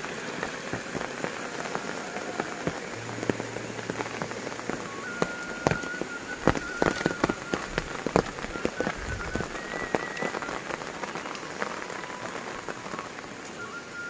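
Steady rain falling on roofs and ground, with sharp drip impacts from water running off the eaves, thickest around the middle.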